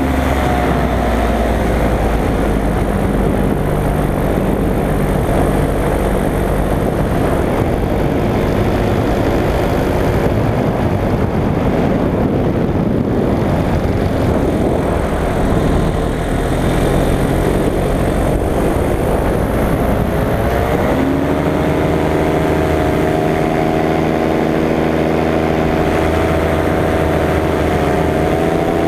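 Paramotor engine running during flight, with a rushing noise of air over it. The engine note drops at the start, then about two-thirds of the way through it climbs sharply and holds steady at a higher pitch as the throttle is opened.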